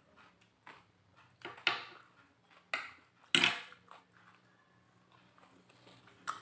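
Close-miked chewing and crunching of food, with a few sharp crunchy bites, the loudest about one and a half and three and a half seconds in.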